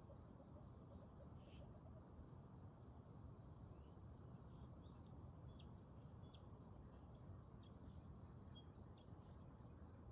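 Faint, steady high-pitched insect drone, like crickets, unbroken throughout, over a low background hiss.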